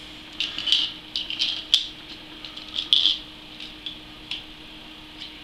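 Irregular light clicks and rattles of small hard parts being handled, from screwing compression tube fittings into a CPU water block and tightening them a quarter turn past finger tight. A faint steady hum runs underneath.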